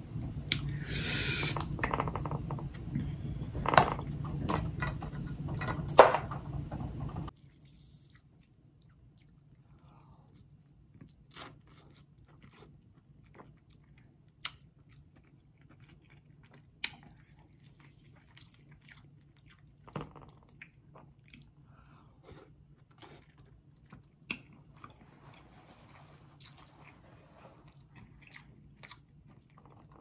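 Close-up eating sounds: wet chewing and smacking of crab meat in sauce, with sharp clicks and crunches from the crab shells. About seven seconds in, a steady background hum cuts out suddenly, leaving quieter, scattered clicks and chewing.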